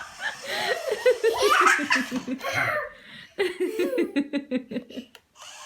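Hearty laughter in two bouts of quick, rhythmic ha-ha-ha pulses, with a short pause just past the middle.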